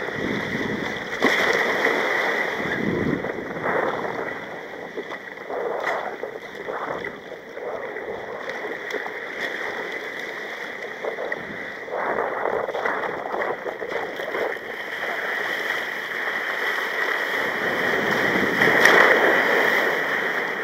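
Rough sea water sloshing and breaking around a sea kayak, splashing against the hull in irregular surges, loudest about a second in and again near the end.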